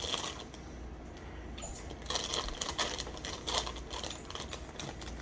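Plastic snack packaging crinkling as it is handled, with a run of small rustles and clicks starting about two seconds in.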